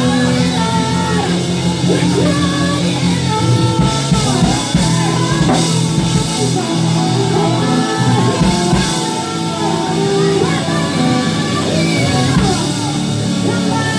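Live gospel praise band playing, with drums, electric guitar and bass under singing voices.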